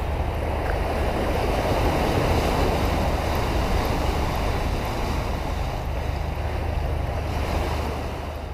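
Sea water rushing and splashing around a ship's bow as it cuts through waves, over a steady low rumble. It fades out near the end.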